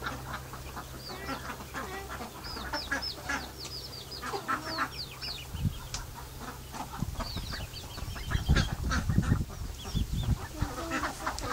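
A flock of domestic ducks calling, a busy mix of quacks and many short high-pitched calls. From about seven seconds in, an irregular low rumble comes in and is the loudest sound.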